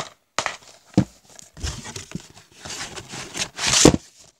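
Plastic DVD and Blu-ray cases being handled and swapped: rustling and scraping, with a sharp clack about a second in and a louder knock near the end.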